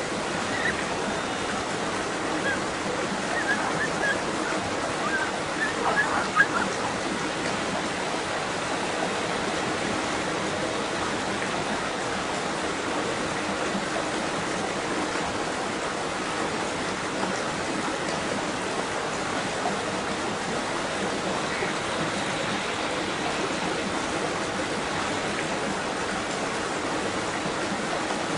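Steady rush of flowing water, with a few brief sharper splashes in the first several seconds.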